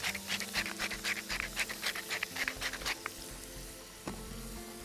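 Lobster pieces frying in oil and butter in a pan, a dense run of sizzling crackles for about three seconds that then thins out. Soft background music with held notes plays underneath.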